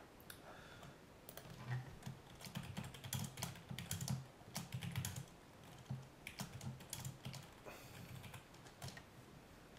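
Typing on a computer keyboard: a run of irregular keystrokes with short pauses between bursts.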